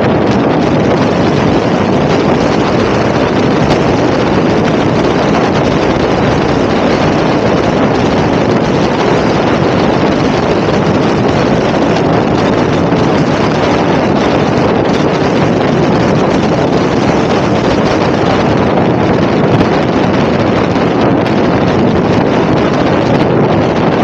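Loud, steady wind rushing over the camera's microphone at riding speed on a motorbike, with no engine note standing out.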